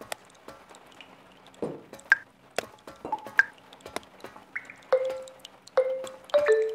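Cartoon water drops plinking one by one at uneven intervals, each a sharp tick with a brief ringing note, the notes at different pitches. The drips come louder and closer together in the second half.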